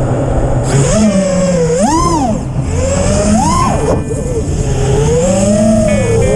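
RC car motor revving up and down, its whine rising and falling in pitch several times as the car is throttled on and off.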